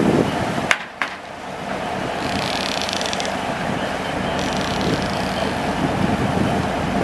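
Shrimp and crushed ice being raked and scraped across a steel sorting table by gloved hands, over a steady low rumble. Two sharp clicks come about a second in, and a higher scraping hiss lasts about two seconds in the middle.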